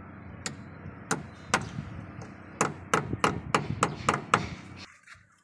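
A hammer tapping at a precast styro-core window-sill moulding, about ten sharp knocks: three spaced out at first, then a quicker run of about three a second.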